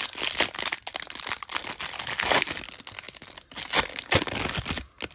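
Clear plastic wrapper of a baseball card pack crinkling and tearing as it is pulled open by hand and peeled off the stack of cards: a dense, irregular run of crackles.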